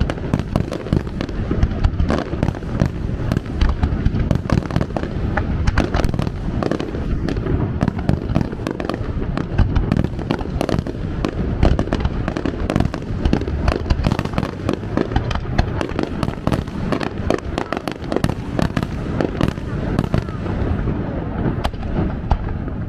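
Japanese fireworks display: a dense, continuous barrage of aerial shell bangs and crackles, many overlapping every second.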